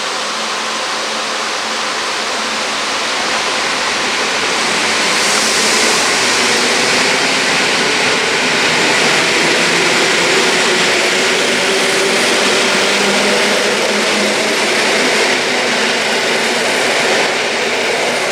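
ED72 electric multiple unit moving along the station track: a steady rumble and hiss of wheels on rails, growing louder about five seconds in.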